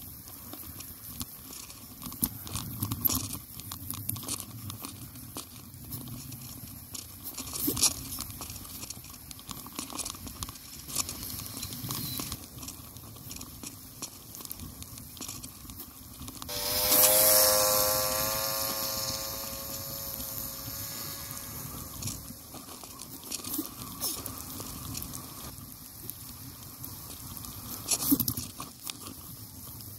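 Mountain bike tyres crunching and crackling over packed snow and slush, a steady gritty noise with scattered small clicks. About two-thirds of the way through, a louder pitched hum comes in and slowly falls in pitch and fades over several seconds.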